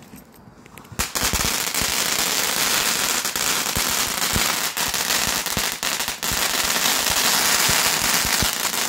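Firework going off, starting about a second in: a loud steady hiss thick with rapid crackles and pops.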